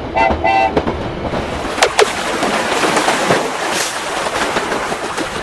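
Cartoon sound effect of a small inflatable boat moving through water: a steady rushing, splashing water noise. A couple of short horn toots sound at the start.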